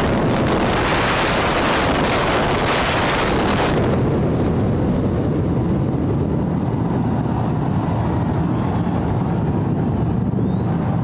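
Long continuous rumble of the explosive demolition of two concrete high-rise towers (32 and 29 floors), set off with about 3,700 kg of explosives, as they collapse. About four seconds in the hiss falls away, leaving a deep low rumble.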